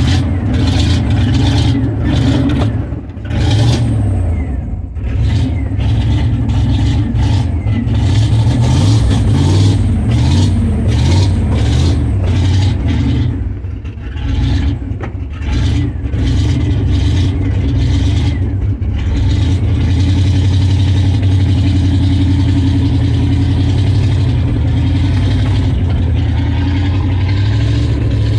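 1998 Dodge 1500's 5.9-litre V8 running just after a new ignition was fitted, its note uneven with a few brief dips in the first half, then settling to a steady run.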